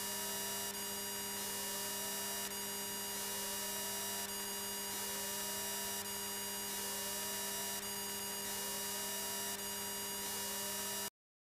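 Steady electrical hum and hiss in a light aircraft's intercom audio feed, with a short rising whine that repeats about once a second, typical of strobe-light interference. It cuts off suddenly near the end.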